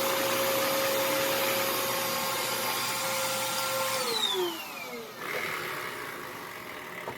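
Vacuum cleaner running with a steady whine, then switched off about four seconds in, its motor winding down in pitch and fading.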